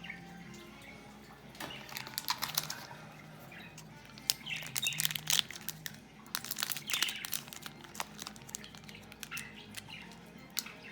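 Foil trading-card pack wrappers and cards being handled, crinkling and crackling in four short bursts.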